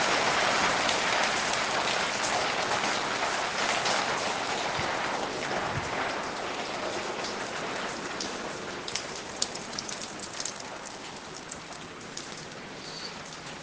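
Rain falling steadily, a dense hiss that grows gradually quieter, with separate drops ticking more clearly in the second half.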